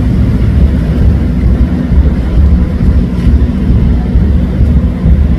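Amplified rock band's bass guitar and drums from a concert next door, heard as a loud, deep rumble of bass with little of the rest of the music coming through.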